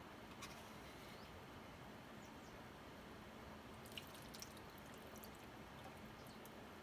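Near silence with a few faint small clicks, one about half a second in and a couple around four seconds in.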